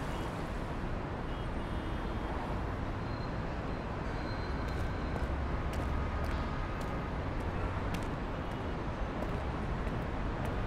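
Steady road traffic noise, with a low rumble that swells a little in the middle.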